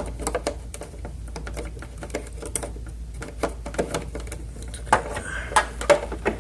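Irregular small clicks and taps of a turn-signal bulb socket being worked back into a car's headlight assembly, with a few louder clicks about five seconds in.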